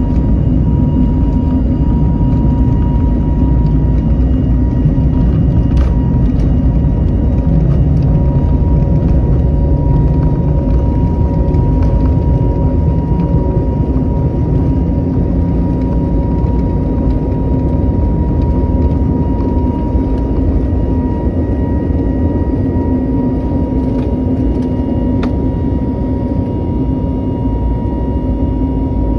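Jet airliner engines at takeoff power, heard from inside the passenger cabin during the takeoff roll: a loud, steady rumble with a steady engine whine. The low rumble eases slightly near the end as the aircraft lifts off.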